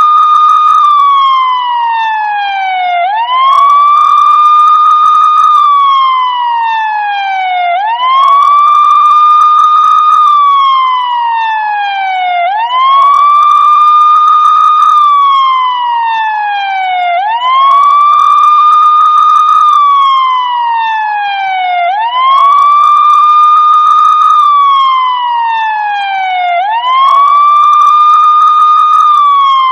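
Police siren ringtone sounding a wail: the tone rises quickly, holds high, then falls slowly, and the cycle repeats about every four to five seconds, steady and unchanging.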